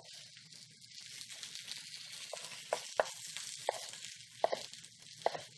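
Chef's knife cutting a tomato on a wooden cutting board: about seven light, irregular knocks of the blade on the board from about two seconds in, over a faint steady hiss.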